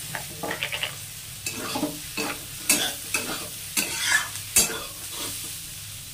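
Metal spatula stirring and scraping sliced ivy gourd (kundru) around a metal kadhai, with about ten irregular scrapes and knocks against the pan over a faint sizzle of the vegetables frying with ground spices.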